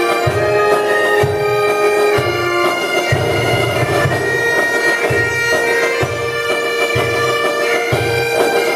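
Bagpipe playing a melody over its steady drone, with a low pulse repeating about once a second underneath.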